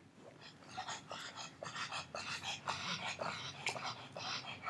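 A pug snorting and breathing hard in quick, irregular puffs, starting about a second in.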